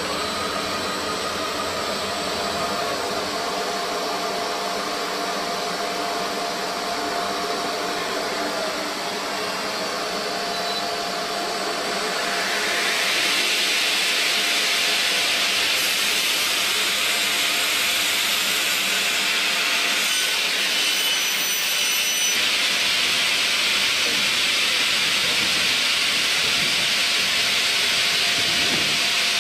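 Large segmented circular saw blade of a CNC bridge saw cutting through a stone slab: a steady grinding hiss with a faint whine under it, growing louder and harsher about thirteen seconds in.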